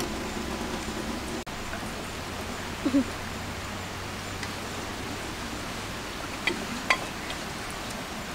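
Outdoor mealtime ambience: a steady rushing hiss with faint voices at first, a brief vocal sound about three seconds in, and two sharp clinks near the end, like cutlery or glass on plates.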